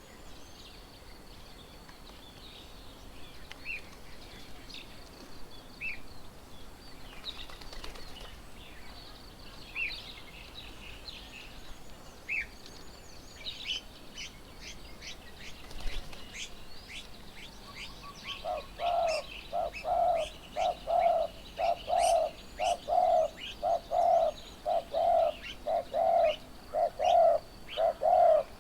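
Wild birds calling: scattered high chirps and twitters, then, about two-thirds of the way in, one bird begins a loud, even series of low hooting notes, nearly two a second, that runs on over the chirping.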